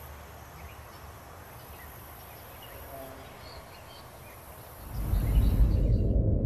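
Quiet outdoor ambience with a few faint bird chirps. About five seconds in, a loud, low horror-film rumble starts abruptly and holds on.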